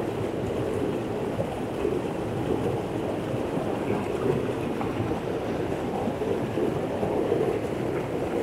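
Fast-flowing river current rushing steadily over rocks.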